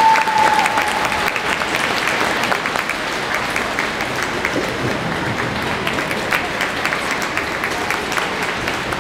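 Audience applauding steadily: a dense patter of clapping. A short held tone sounds and fades away in the first second.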